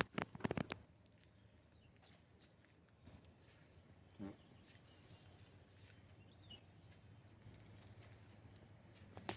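Quiet outdoor natural ambience: a few crackling clicks in the first second, then a faint steady background with a short animal call about four seconds in and faint high chirps.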